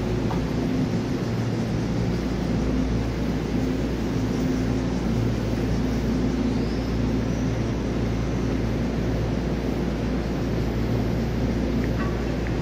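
Steady hum of an EMU3000 electric multiple unit train standing at the platform, its onboard equipment running with a low, even drone.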